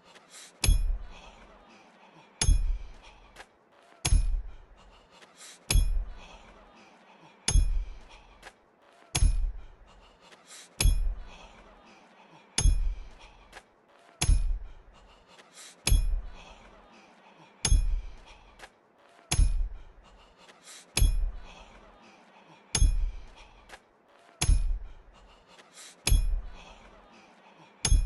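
A hammer driving nails with steady, evenly spaced blows, about one every 1.7 seconds. Each blow is a deep thud with a high metallic ring.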